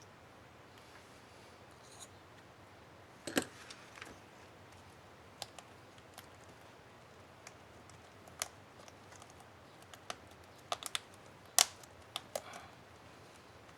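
Scattered small plastic clicks and taps from a laptop keyboard's Enter key cap and its clips being handled and fitted, about a dozen spread out, with the sharpest clicks about three seconds in and near the end.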